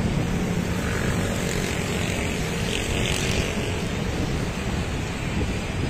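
Steady wind noise on the microphone, a low rumble with a hiss above it.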